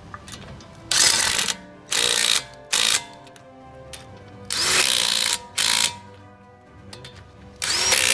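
Ratchet wrench clicking in several short, loud spells as brake caliper bolts are tightened.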